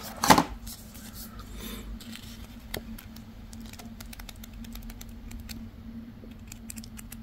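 A small paper instruction booklet being handled and its pages flipped: scattered soft paper ticks and rustles, with a brief louder handling sound at the start, over a faint steady low hum.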